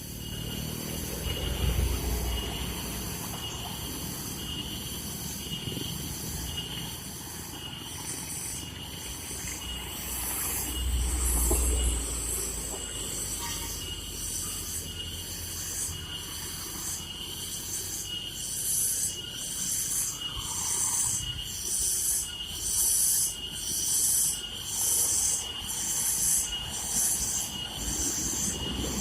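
Heavy loaded truck working up a steep climb: a low engine rumble that swells twice, with a high hissing that pulses about once a second through the second half.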